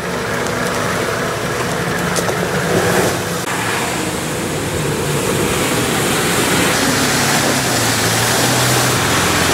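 Off-road 4x4 SUV engines running as the vehicles drive through mud and water, with the engine note shifting over a steady rushing noise.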